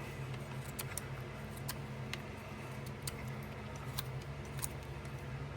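Pocket knife blade whittling a thin stick, shaving and scraping the wood in small, irregular ticks and clicks.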